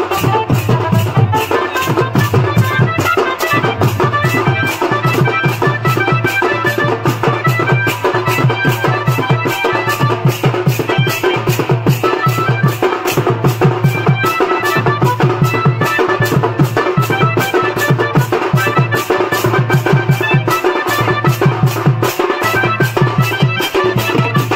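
Loud band-party music: fast, steady drumming with a melody line playing over it.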